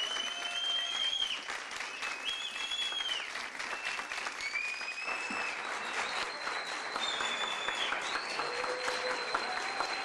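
Audience applauding steadily, dense clapping with several high held tones sounding over it.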